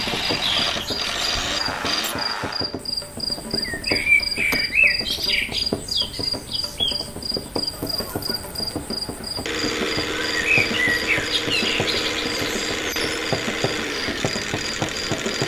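Crickets chirping in a steady, pulsing trill, with short bird chirps over it.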